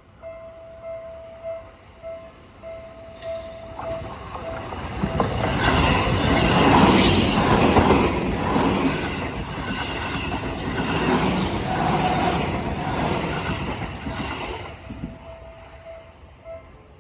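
Seibu 20000 series electric commuter train passing over a level crossing. It rises about four seconds in, is loudest midway with wheels clattering over the rail joints, and dies away near the end.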